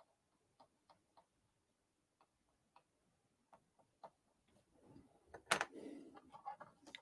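Sparse, faint ticks of a small tool and fingertips on a plastic scale model, becoming a cluster of louder clicks and handling noise over the last two seconds or so as the model is turned in the hands.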